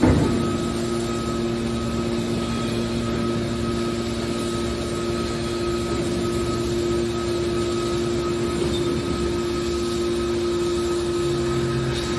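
A steady mechanical drone holding a few fixed tones at an even level, with a short knock right at the start.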